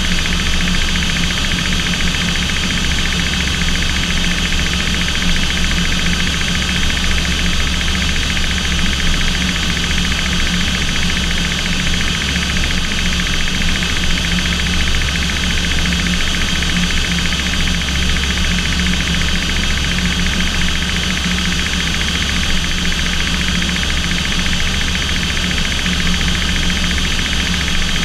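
Aircraft engines and airflow heard from inside the cockpit in flight: a steady loud drone with a deep hum and a few constant tones, unchanging throughout.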